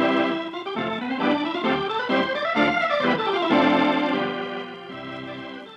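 Organ music cue opening an act of an old-time radio drama: a melody climbs and falls, then settles on a long held chord that grows quieter near the end.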